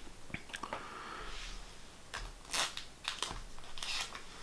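Pokémon trading cards being handled: soft rustling and sliding with scattered light clicks and taps.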